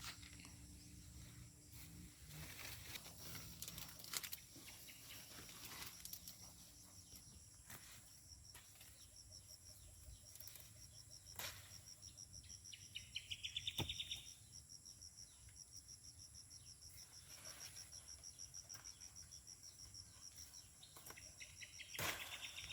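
Faint insect chorus: a steady, high-pitched, pulsing cricket-like trilling throughout. A louder, rapidly pulsing trill comes about halfway through and again near the end, with scattered light clicks and rustles.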